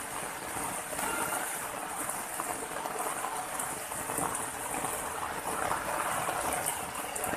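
Steady rushing of running water flowing over rocks, even and unbroken.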